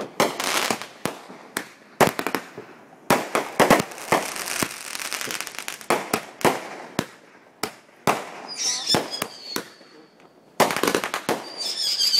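Fireworks display: a rapid run of sharp bangs from aerial shells bursting, with a stretch of crackling a few seconds in. Two high whistles sound in the last few seconds, and a fresh volley of bangs follows a short lull.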